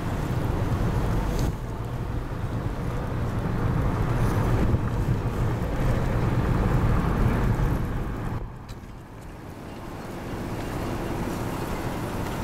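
Strong dust-storm winds gusting over the microphone: a low, steady rush that swells and eases, dropping off briefly about two thirds of the way through.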